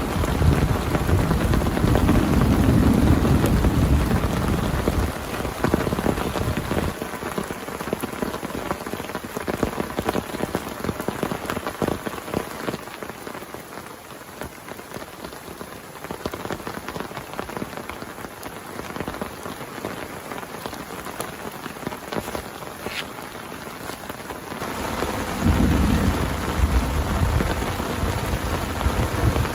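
Heavy rain pouring steadily, with a low rumble of thunder at the start and again near the end. The rain is quieter in between.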